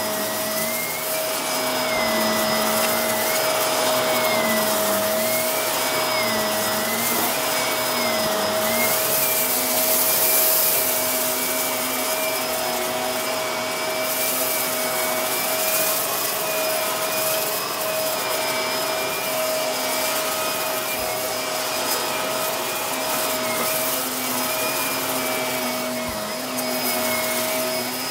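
Shark upright vacuum cleaner running steadily on shaggy carpet, its motor pitch dipping and rising every second or so for the first several seconds, then holding steadier.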